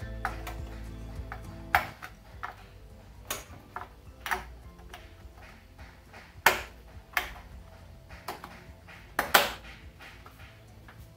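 Plastic quick-connect fittings of the crankcase ventilation (blow-by) hoses on a Peugeot VTi 1.6 16-valve engine clicking as they are pushed home and handled: a series of sharp, irregular clicks and light knocks, the loudest about six and a half and nine seconds in. Faint background music plays underneath.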